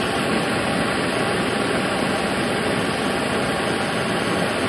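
Handheld gas soldering torch burning with a steady, loud hiss of flame, heating a copper pipe fitting for soldering.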